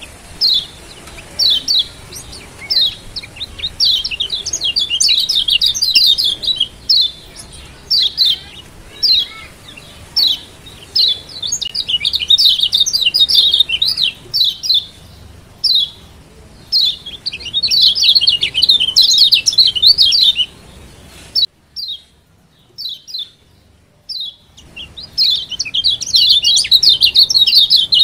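Lombok yellow white-eye (kecial kuning) giving sharp, high 'ciak' chirps, some singly and some in fast chattering runs. The calls stop briefly about three-quarters of the way through, then start again.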